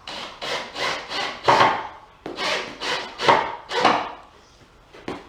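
Rhythmic back-and-forth scraping strokes on wood, about eight of them at roughly two a second, stopping about four seconds in.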